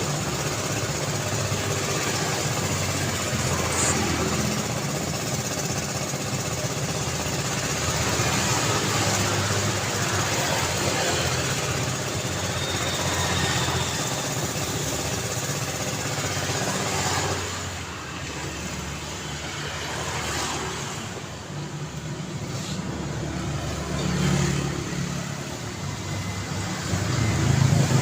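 Road traffic: engines and tyres of passing cars making steady, dense noise with low rumble. About two-thirds of the way through it drops to a quieter lull, then another vehicle swells up briefly, and a louder one approaches near the end.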